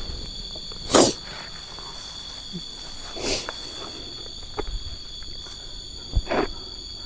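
A woman crying: three short sobbing cries with pauses between, the loudest about a second in.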